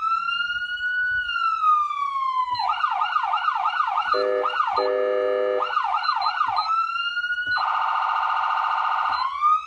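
Carson electronic emergency-vehicle siren run through its tones. A slow rising-and-falling wail gives way to a fast yelp, broken twice by a lower steady blast, then a brief wail again. It finishes with about a second and a half of very rapid warble before rising once more near the end.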